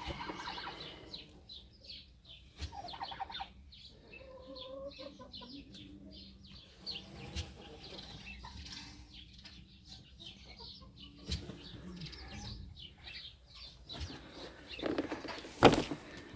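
Birds chirping and chickens clucking in the background, with a few sharp knocks, the loudest near the end.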